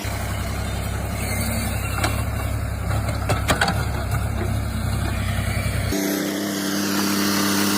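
Heavy diesel machinery running: a deep engine rumble with several sharp knocks and clatter in the middle. About six seconds in it switches abruptly to a steadier, even engine hum.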